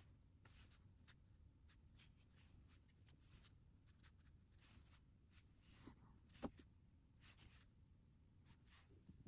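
Faint, short swishes of a watercolor brush stroking across Canson watercolor paper, many strokes one after another, with one sharper tap about six and a half seconds in.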